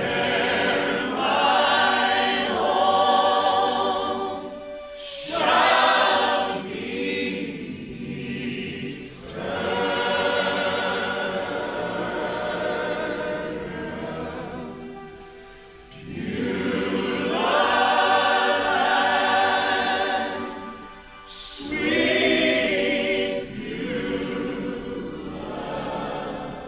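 A choir singing a gospel hymn in long sustained phrases, with short breaks between phrases about 5, 15 and 21 seconds in.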